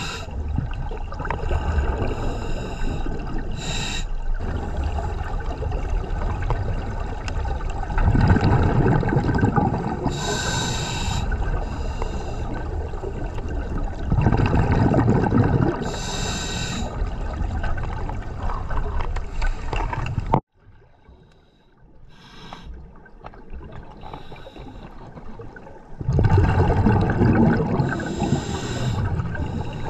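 Scuba diver breathing through a regulator, heard underwater: short hissing inhalations and rumbling, gurgling exhaled bubbles every few seconds. The sound drops away abruptly about two-thirds through and returns a few seconds later.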